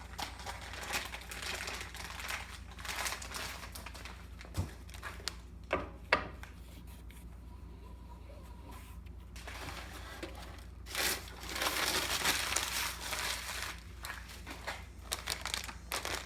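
Hands handling parts and packaging: crinkling and rustling with scattered small clicks and knocks while a leather polishing wheel is screwed onto a bolt on a lapidary grinder. The sound is quieter in the middle and picks up again near the end.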